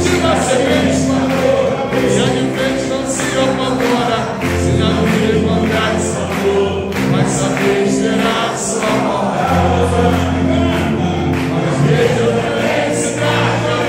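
Live pagode samba music: regular percussion strokes and a bass line of held notes, with a crowd singing along in chorus and clapping.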